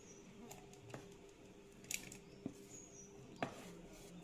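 A spoon tapping and scraping on steel cookware as sautéed drumstick leaves and onion are tipped into a steel bowl: a few faint clicks and taps, the loudest about three and a half seconds in, over a faint steady hum.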